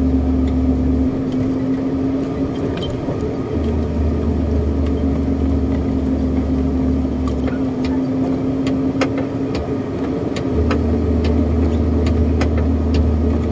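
A 10-wheeler truck's diesel engine running steadily, heard from inside the cab, with many sharp rattles and clicks from the cab.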